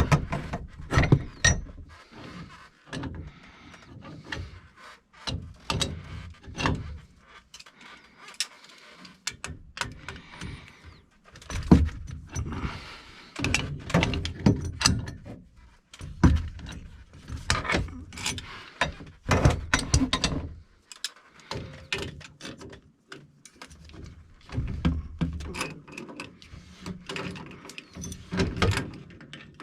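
Irregular metal clanks, clicks and knocks of hand tools and fittings being handled while a pressure reducing valve is worked on, with a few heavier thunks among them.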